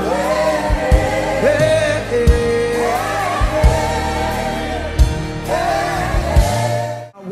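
Gospel worship song: voices sing long, wavering melodic lines over a band, with regular drum hits underneath. The sound cuts out briefly near the end.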